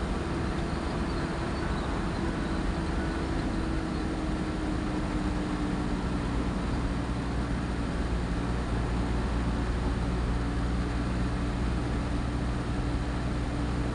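Delivery truck cruising on a highway, heard from inside the cab: a steady engine hum over tyre and road noise, the engine note easing slightly lower in the first half and then holding steady.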